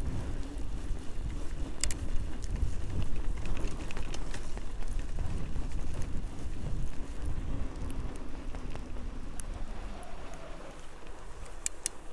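Outleap Hercules fatbike's wide tyres rolling over packed snow: a steady low rumble with scattered small crackles, easing off a little near the end.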